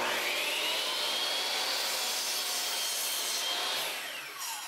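Hitachi C10FCH2 10-inch compound miter saw starting up with a rising whine, running at full speed with a dense hiss, then switched off, its pitch falling as the blade winds down near the end.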